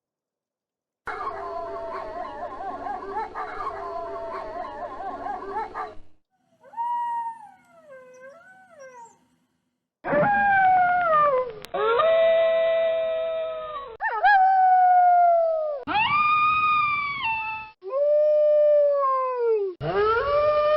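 Wolves howling: a chorus of several overlapping howls for about five seconds, then a fainter lone howl that wavers up and down in pitch. From about halfway through comes a run of loud single howls, each about two seconds long, dropping in pitch at the end and cut off abruptly.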